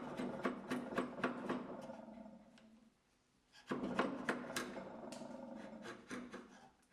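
Freshly sharpened wood chisel paring basswood: a run of short, crisp cutting strokes, about three to four a second, that fades and stops a little before halfway, then starts again and continues.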